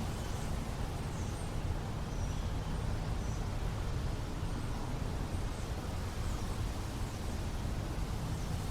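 Small-town outdoor ambience: a steady low rumble of wind and distant traffic, with faint high bird chirps scattered throughout.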